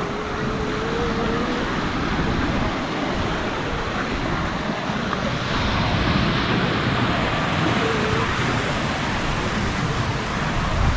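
Small sea waves washing onto a sandy beach in a steady rush, with some wind.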